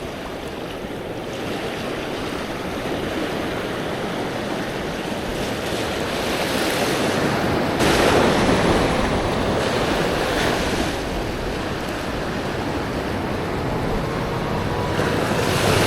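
Ocean swell surging and washing over a rock ledge, a steady rush of whitewater that slowly grows louder, with surges about halfway through and again near the end.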